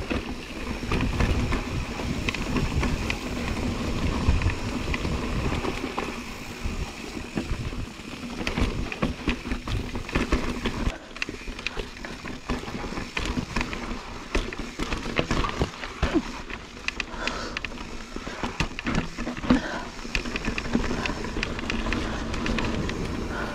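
Mountain bike ridden down a rocky dirt singletrack: tyres on dirt and stones, with many small knocks and rattles from the bike over the bumps, and a gusting low rumble of wind on the microphone.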